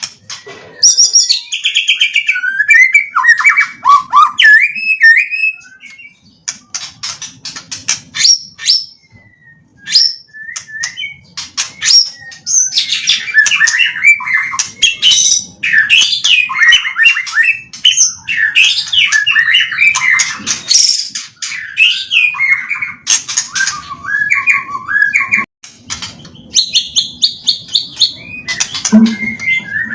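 White-rumped shama singing loudly, a long, varied song of rich whistles, fast rising and falling phrases and runs of rapid clicking notes, with short pauses. The song is stuffed with notes copied from tutor birds.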